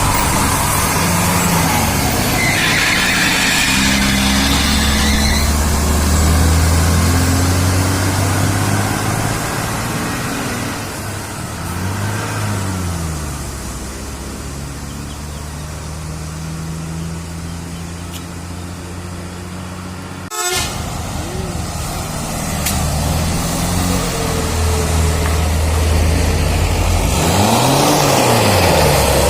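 Tour buses' diesel engines passing on a road, their pitch rising and falling as they go by, with toots from multi-tone telolet horns. A brief hiss comes a few seconds in, and a sudden sharp click about twenty seconds in.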